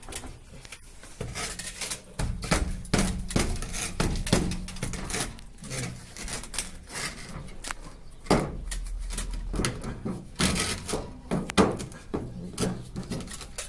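PVC rainwater pipe fittings being handled and pushed together by hand: irregular knocks and clicks, with a few louder thumps in the second half.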